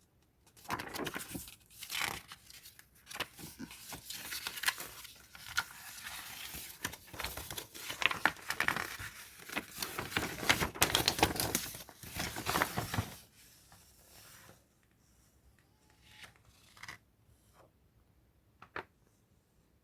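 Packaging around a book being torn open and crinkled, with dense rustling and crackling for about 13 seconds. After that come a few faint handling clicks.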